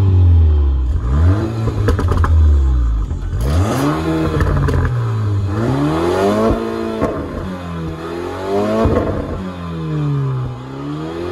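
2022 Porsche Macan's turbocharged EA888 four-cylinder engine revved repeatedly through its quad exhaust tips, the pitch climbing and falling about four times.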